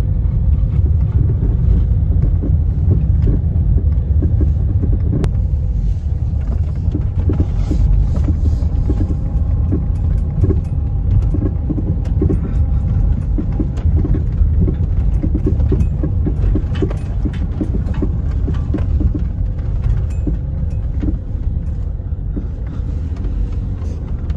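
A vehicle driving on a gravel road, heard inside the cabin: a steady loud rumble of engine and tyres, with frequent small crackles from the gravel under the wheels.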